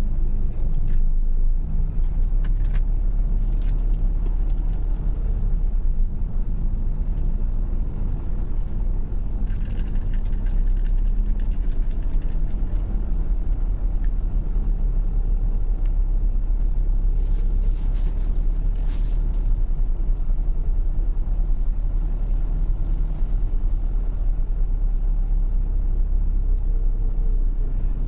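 Heavy truck's engine rumbling steadily, heard from inside the cab while it sits or crawls in a traffic jam. A run of quick clicks comes about ten seconds in, and a short hiss near eighteen seconds.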